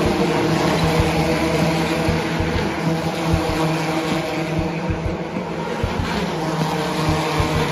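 Formula E electric race cars running on a street circuit, heard from trackside against a steady background din.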